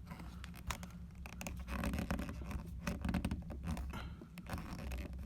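Small screwdriver bit scratching and clicking as it slips in a tiny screw head inside a MacBook Pro: the screw head is stripped. The ticks come in uneven runs, busiest in the middle.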